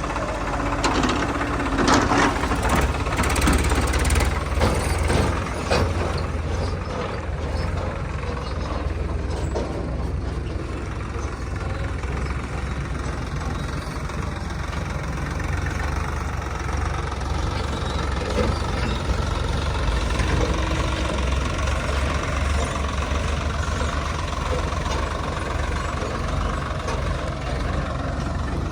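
Heavy diesel engine running steadily with a deep rumble. A run of sharp knocks and clanks sounds over it in the first six seconds or so.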